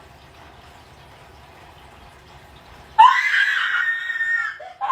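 A person screams suddenly in fright about three seconds in: one high, held scream lasting about a second and a half, after a low steady background hiss.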